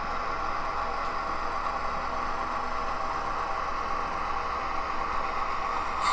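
HO scale model diesel locomotive's sound decoder playing a steady engine idle, with a short click near the end.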